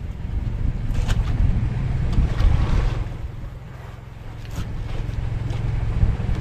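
Wind buffeting the microphone and sea noise on a small fishing boat, over a steady low rumble. The wind swells and fades, with a couple of short knocks.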